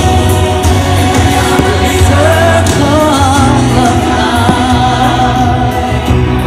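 Loud music with singing: a song with wavering sung notes held over a steady bass line, from the movie-themed soundtrack of the fireworks show.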